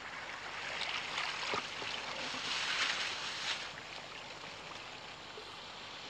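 Shallow seawater sloshing and splashing around hands and boots as seaweed is pulled up from the muddy shoreline, swelling for a couple of seconds before easing off.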